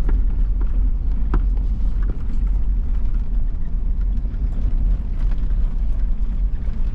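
A vehicle driving, heard as a steady low rumble with a few short knocks and rattles.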